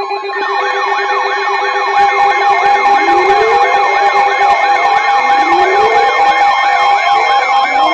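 Emergency-alert siren sounds: a fast electronic yelp sweeping up and down about three times a second and a slower wail rising every two to three seconds, over a steady two-note tone like the EAS attention signal. It gets louder about two seconds in.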